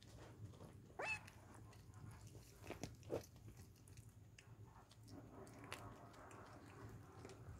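Mother cat quietly chewing and biting on the remains of a stillborn newborn kitten, with soft wet chewing and crunching. A brief high squeak about a second in.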